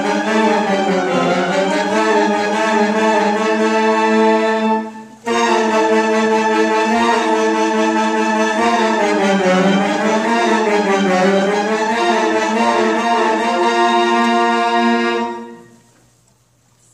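Saxophone ensemble playing slow, sustained chords, with a short break about five seconds in. The final chord is held and dies away near the end.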